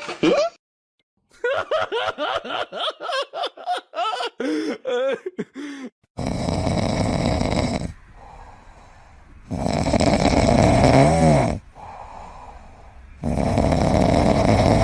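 Loud snoring: three long snores a few seconds apart, starting about six seconds in. Before them comes a quick run of short, high, squeaky calls that rise and fall.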